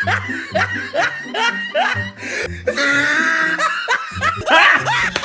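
Background music with a repeating bass line, mixed with people laughing and chuckling.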